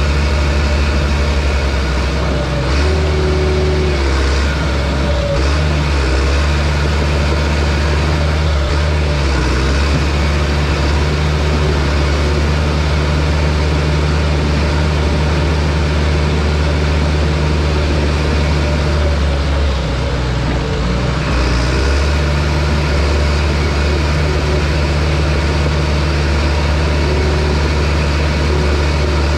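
John Deere bulldozer's diesel engine running steadily under load, with brief shifts in the engine note about three seconds in and again about twenty seconds in.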